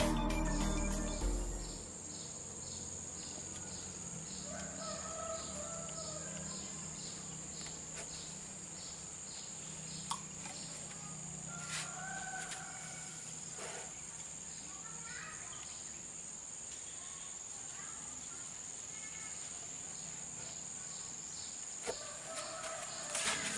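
Intro music cuts off in the first two seconds, giving way to outdoor ambience: a steady high insect drone with a regular pulsing chirp, about two pulses a second. A bird calls twice, several seconds apart, over the insects.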